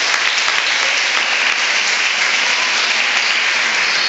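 Audience applauding, a steady, continuous clapping.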